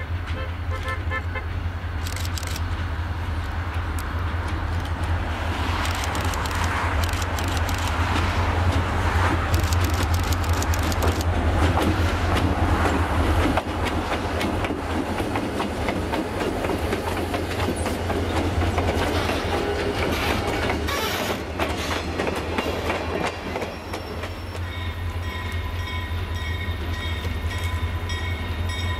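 Norfolk Southern and CSX diesel locomotives passing close by: a steady low engine rumble with wheels clicking over the rail joints, loudest as the locomotives go past mid-way. After a cut near the end, a grade-crossing signal rings as the train approaches.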